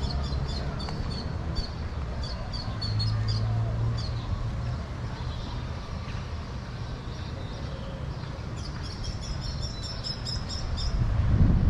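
Birds chirping in quick runs of short, high notes, in two spells, over a steady low rumble of street traffic. A passing vehicle swells the rumble near the end.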